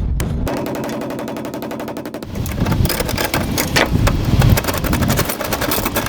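Fast, rattling series of hammer blows on the sheet-metal floor pan, reshaping it around the shifter opening. The blows start about half a second in and get louder and heavier about halfway through.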